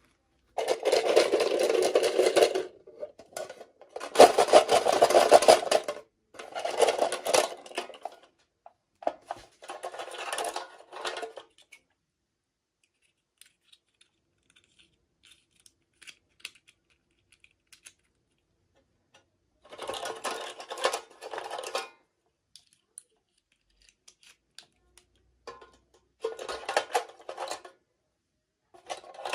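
Packaging being handled and unwrapped: seven separate bursts of rustling and crinkling, the longest in the first eight seconds, with a long quiet stretch in the middle holding only faint ticks.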